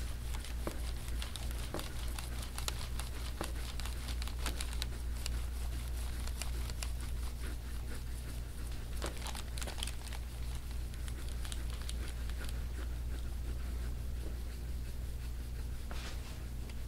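A handheld soft-tissue scraping tool pressed and dragged over an oiled back close to the microphone, giving a continuous run of irregular crackly, crunchy clicks. A steady low hum runs underneath.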